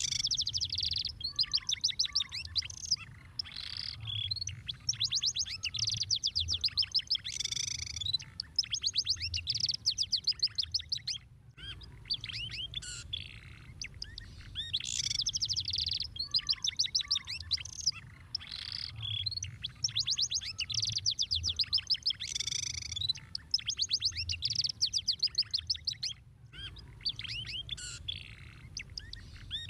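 Domestic canary singing a long, continuous song of very rapid trills and chirped phrases, with two brief breaks, over a faint low hum.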